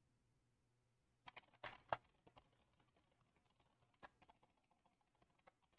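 Faint computer keyboard keystrokes: a few scattered clicks, the loudest about two seconds in, over near silence.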